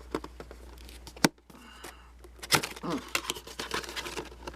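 Action-figure packaging being opened by hand: cardboard box and plastic tray crinkling and tearing, with a sharp snap just over a second in and louder rustling from about halfway.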